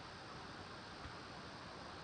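Steady background hiss of room tone, with one soft low bump about halfway through.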